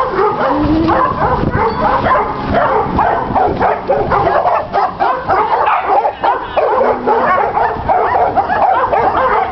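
A pack of dogs barking all at once, many short calls overlapping with no break between them.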